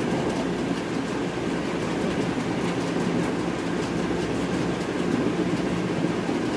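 Steady low mechanical hum and rumble.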